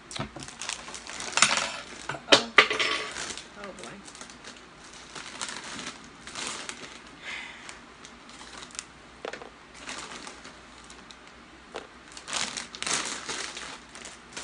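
Close-miked mukbang eating sounds: a mouthful of pizza being chewed, with several sharp, loud crunching clicks in the first few seconds and softer mouth noises after. Near the end there is a longer crinkling rustle as Flamin' Hot Cheetos are piled onto the pizza.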